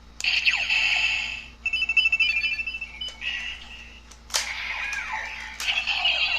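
Electronic sound effects: a run of short synthesized beeps with sweeping tones and a few sharp clicks.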